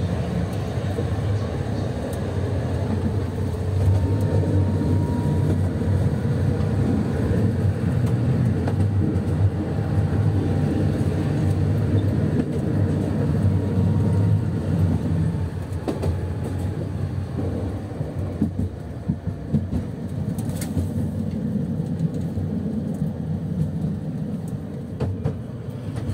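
Tram running along its rails, heard from inside the car just behind the driver's cab: a steady low rumble of wheels and running gear, with a faint whine that rises and falls in pitch. The sound grows quieter in the last third, and there is one sharp click about twenty seconds in.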